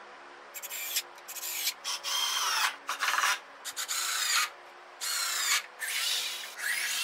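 Cordless drill driving screws into a wooden frame in about eight short runs, the motor's pitch dropping within each run.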